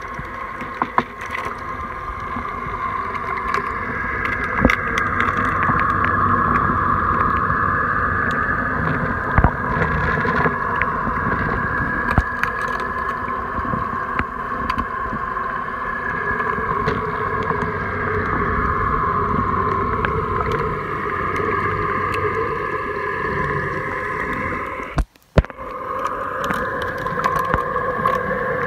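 HammerHead electric pool vacuum running underwater, a steady motor hum with a couple of high whining tones over a low rumble, muffled as if heard through water. The sound cuts out sharply for a moment near the end.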